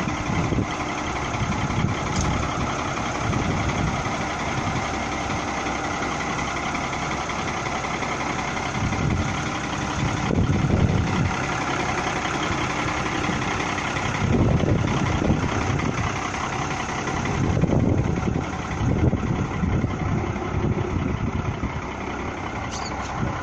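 Fiat 140.90 tractor's six-cylinder diesel engine idling steadily, with gusts of wind buffeting the microphone several times.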